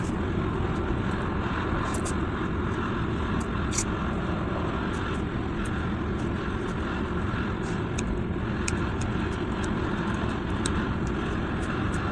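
Steady low rumbling background noise with a few faint clicks scattered through it.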